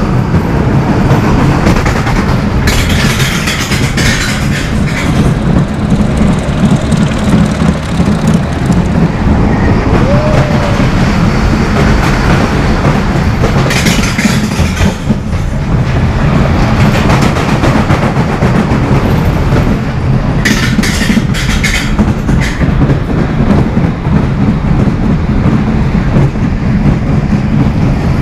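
Pinfari ZL42 looping steel roller coaster heard from on board while the train runs the circuit: a loud, steady rumble and rattle of the wheels on the track. Three brief, harsher bursts of clatter come about three seconds in, midway through and about two-thirds through.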